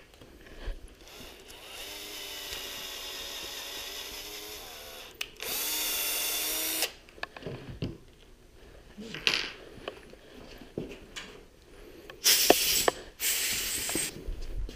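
Cordless drill motor running in two spells: a longer, softer run whose pitch shifts slightly as it winds up, then a louder run of about a second and a half. Scattered clicks follow, and two loud, harsh bursts come near the end.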